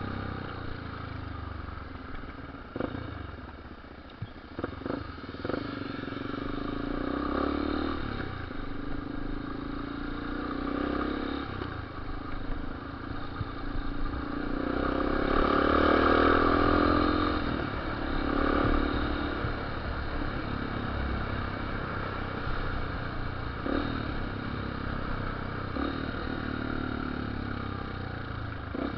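Yamaha Lander 250 single-cylinder motorcycle engine running while riding, its revs rising and falling and loudest about halfway through. A few sharp pops stand out, typical of exhaust pops and bangs on this bike.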